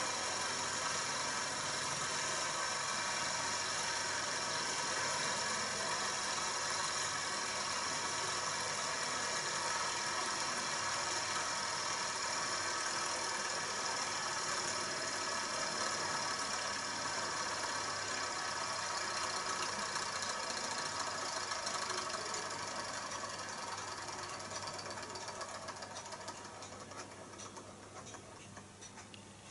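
Small vertical-crankshaft Stirling engine with a horizontal flywheel running steadily, an even mechanical running sound that fades away over the last several seconds.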